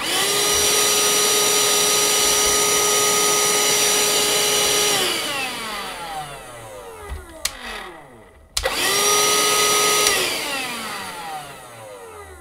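Parkside cordless handheld vacuum cleaner switched on with a click, its motor running with a steady whine for about five seconds, then switched off and spinning down with falling pitch; it is started again about 8.5 s in, runs briefly and winds down again. It is running on a 20-volt battery of another brand wired to it through jumper leads, and the battery works in it.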